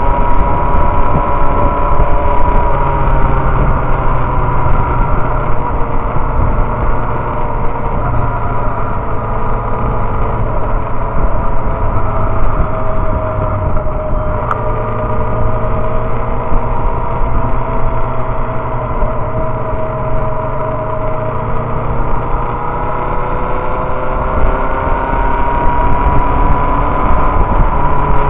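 Inline-four sport motorcycle engine cruising, heard with heavy wind rush on a bike-mounted camera. The engine note sinks slowly, breaks briefly about halfway through, sinks again, then climbs over the last few seconds as the bike speeds up.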